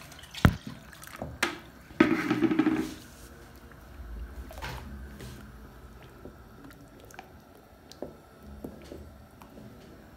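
Thick porridge being stirred with a stick in an aluminium pot: wet squelching with a few sharp knocks of the stick against the pot, and a louder, rougher stretch of about a second around two seconds in, then softer stirring.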